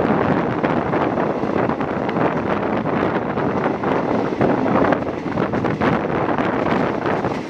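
Wind rushing over the microphone held out of the window of a moving passenger train, over the train's steady running noise.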